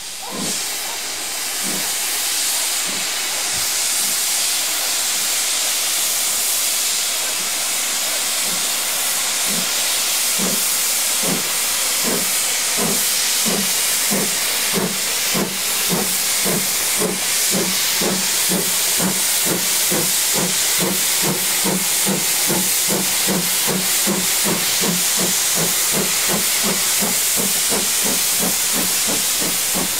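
BR Standard Class 2MT 2-6-0 steam locomotive No. 78018 starting away with its train under a loud, steady hiss of escaping steam. Exhaust chuffs begin about a third of the way in and quicken steadily to about three a second as it gathers speed.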